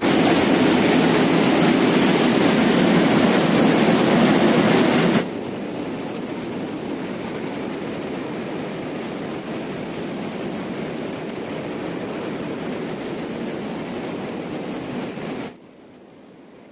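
A loud, steady rushing noise with no pitch, dropping abruptly in level about five seconds in and again near the end.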